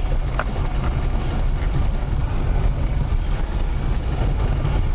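VAZ (Lada) car moving, with a heavy low rumble and dull knocking from the front suspension, which the owner identifies as a worn lower-arm ball joint.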